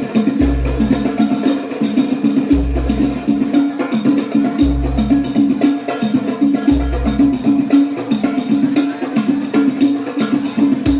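Sholawat music through a loud PA system, heard close to the loudspeakers: fast frame-drum and jingle percussion over held tones, with a deep bass note about every two seconds that stops about eight seconds in.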